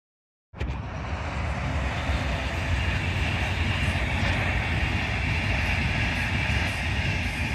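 Passenger train running past on an electrified main line: a steady rumble with a rolling hiss of wheels on rails, starting suddenly about half a second in.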